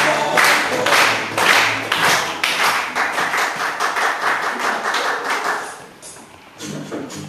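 Hand clapping in time with dance music, about two claps a second, turning into faster, denser clapping from about two and a half seconds in that stops about six seconds in; the next piece of music starts faintly near the end.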